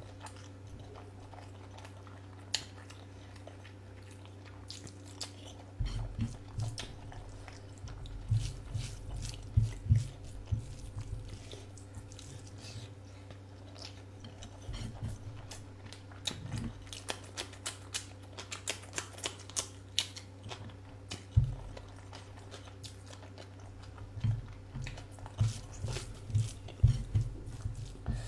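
Close-miked chewing and wet mouth clicks of someone eating a curry meal, coming in irregular bursts from about six seconds in, over a steady low hum.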